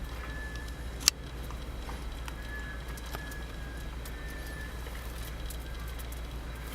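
Faint, drawn-out, even-pitched whistles of black scoters, several in a row, over a steady low rumble of wind on the microphone, with one sharp click about a second in.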